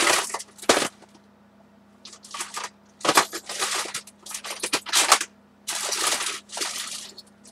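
Craft supplies being handled and sorted by hand: a string of short rustles and crinkles, about nine in all, with brief pauses between them.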